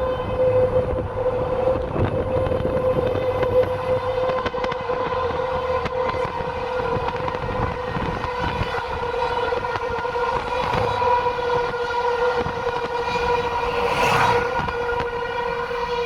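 Outdoor tornado warning siren sounding one steady, unbroken tone, swelling a little in loudness near the end.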